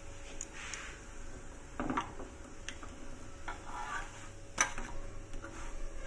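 Metal spatula scraping and knocking against a flat tawa griddle as a roti is pressed and shifted, a few scrapes and clinks with the sharpest about three-quarters of the way through.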